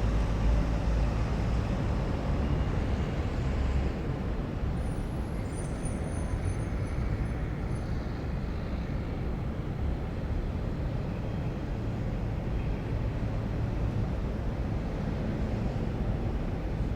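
City ambience: a steady rumble of distant road traffic, with a faint high squeal about five seconds in.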